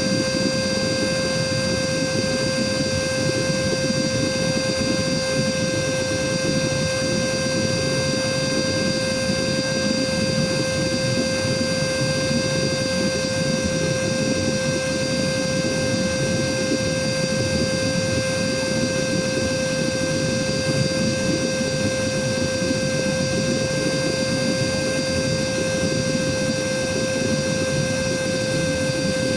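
Cordless vacuum cleaner's motor running continuously on battery power, a steady high whine over the rush of airflow, with no change in pitch or level. It is about seven minutes into a run-down from a full charge.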